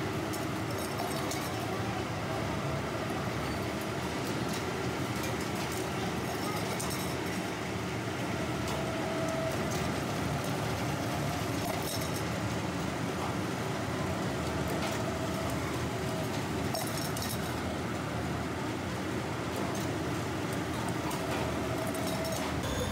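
Steady running noise of workshop machinery at a column press forming sheet-metal oil filter parts, with occasional short metal clinks as the parts are set into the die and pressed.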